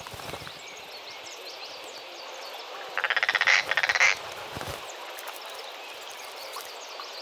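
A rapid rattling animal call lasting about a second, starting about three seconds in, over a background of faint bird chirps.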